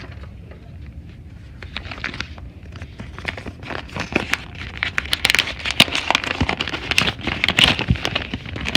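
Rustling and crinkling with many sharp, irregular clicks, sparse at first and growing denser and louder from about four seconds in.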